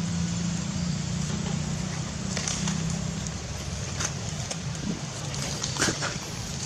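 A low engine hum that fades after about three seconds, over a steady hiss, with a few short sharp clicks in the second half.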